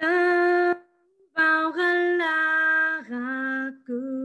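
A woman singing an Alaska Native song solo and unaccompanied, in long held notes with short breaks between them. The melody steps down about three seconds in, and the last note wavers with vibrato.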